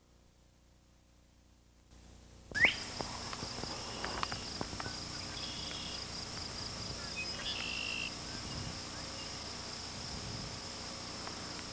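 Near silence for about two and a half seconds, then outdoor summer ambience cuts in suddenly: a steady high-pitched insect chorus, with a few short bird calls.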